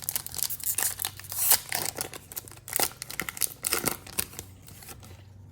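A trading card pack's foil wrapper crinkling and tearing as it is ripped open by hand, in a quick run of crackles and rustles that dies down near the end.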